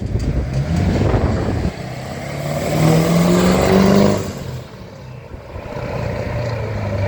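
A car engine rising in pitch as it accelerates past on the street, loudest about three to four seconds in, then fading.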